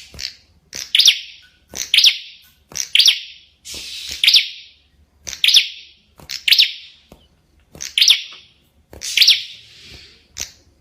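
A small songbird, the prenjak kepala merah (a red-headed prenjak), calling: a sharp, loud, high-pitched chirp repeated about once a second.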